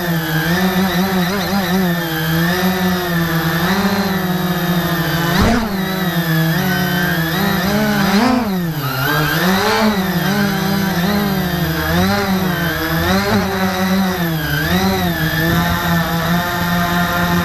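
Quadcopter motors and propellers whining, heard from on board the aircraft. The pitch keeps swooping up and down as the throttle changes, and a brief knock comes about five and a half seconds in.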